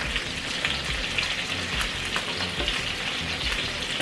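Meatballs frying in oil in a pan: a steady sizzle with fine crackling throughout.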